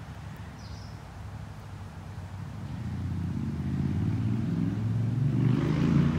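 A motor vehicle engine approaching, growing steadily louder through the second half and loudest near the end as it passes close by.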